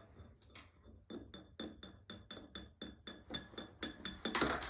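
A spoon clinking against a glass, about four clinks a second, with a faint ringing between them, as the peroxide, soap and yeast mixture is stirred; a louder brief scrape near the end.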